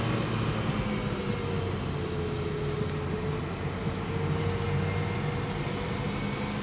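Opel Kadett C driving downhill on a narrow, bumpy road, heard from inside the cabin: a steady engine hum and road noise, with a faint whine that dips slightly in pitch and rises again.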